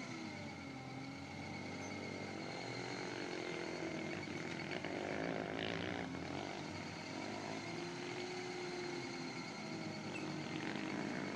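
Turbocharged, fuel-injected Toyota 20R four-cylinder engine of a custom Toyota 4x4 running at low revs while crawling over rock, its pitch rising and falling slightly with the throttle.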